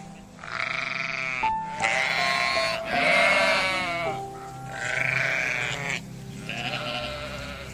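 Sheep in a flock bleating, about five wavering calls one after another, each lasting about a second. Background music with sustained notes plays underneath.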